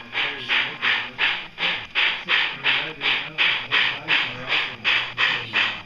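MTH model New York Central Hudson steam locomotive's DCC sound decoder playing steam exhaust chuffs at an even beat of about three a second as the engine runs down the line.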